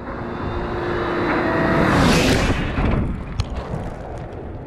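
A vehicle passing by: it swells to its loudest about two seconds in and fades away, its engine tone dropping in pitch as it goes past. A few faint clicks follow.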